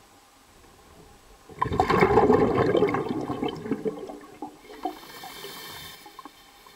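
Water rushing and gurgling, starting suddenly about one and a half seconds in and dying away over the next few seconds, followed by a brief faint hiss.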